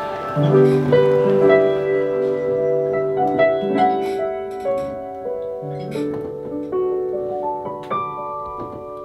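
Piano played on a keyboard: slow chords held under a melody, the notes changing every half-second or so and ringing on.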